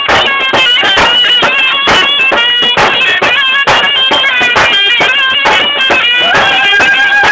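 Traditional folk music: a loud, reedy wind instrument plays an ornamented melody over regular drum strokes, then holds one long note from about six seconds in.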